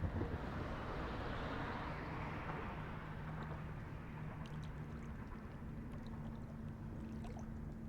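A motorboat engine droning steadily across the lake. A rush of hiss starts suddenly at the beginning and fades over the next few seconds.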